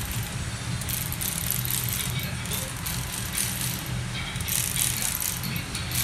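Hand ratchet clicking in short bursts as bolts are turned on an engine block, over a shop radio playing in the background.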